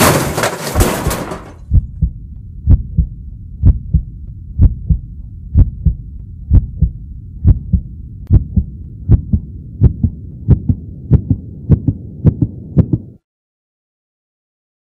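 Heartbeat sound effect: a steady double thump about once a second over a low hum, cutting off suddenly near the end. At the start, a loud rushing noise left over from a car skid dies away.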